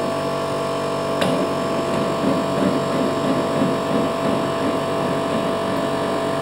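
Steady hum of workshop machinery with several steady tones. A sharp click comes about a second in, then a low irregular rattle as the blade-tilt handwheel of a sliding table saw is turned.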